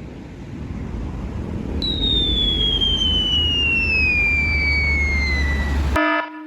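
Cartoon-style sound effects: a low rumble with a long falling whistle starting about two seconds in. Near the end it cuts abruptly to a pulsing electronic alarm beep.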